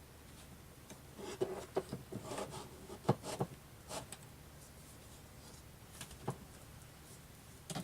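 Handling noises of unpacking a computer monitor: plastic packaging rustling and crinkling, with a few light knocks and clicks, the sharpest a little after three seconds.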